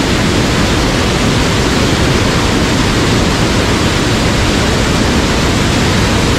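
Steady, loud rush of a fast-flowing mountain stream.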